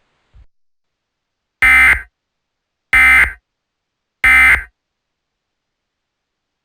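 Emergency Alert System end-of-message code: three short bursts of digital data tones, evenly spaced a little over a second apart, marking the end of the alert.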